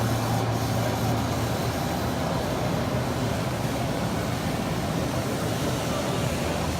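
Steady din of a busy machine-tool exhibition hall, with a low hum underneath that eases about a second and a half in.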